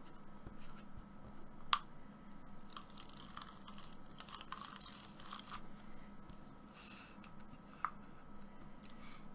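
Rustling and scraping of card as a double-sided tape runner is rolled along its edges, with a sharp click about two seconds in and another near the end.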